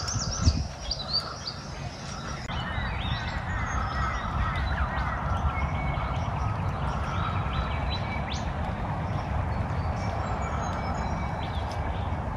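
Several birds chirping and whistling, with many short calls and quick rising notes overlapping, over a steady low rumble.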